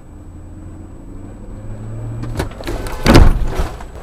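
Car pulling away from a stop with a low engine hum, then a single loud crunching impact about three seconds in: a low-speed collision with another car.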